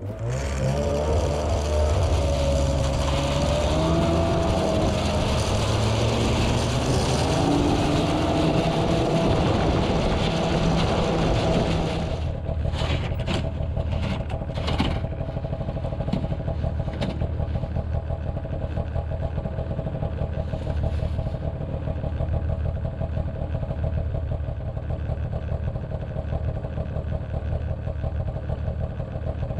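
A motor vehicle's engine running steadily, its pitch wavering for the first twelve seconds. It then settles into an even idle, with a few sharp knocks shortly after.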